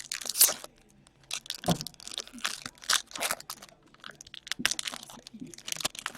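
Hockey trading card packs being torn open and their wrappers crinkled, in several irregular bursts.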